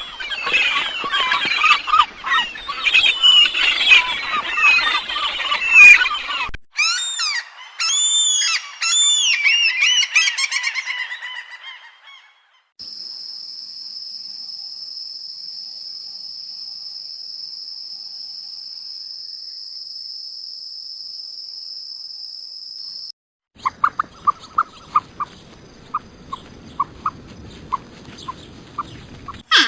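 A run of different animal recordings, chiefly birds: about six seconds of a dense flock calling, then repeated arching calls that fade out, then a steady high-pitched buzz lasting about ten seconds, and near the end a series of short, evenly spaced chirps.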